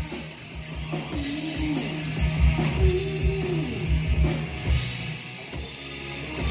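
Rock band playing live: a drum kit driving a steady beat under electric guitars and bass, recorded on a cellphone microphone.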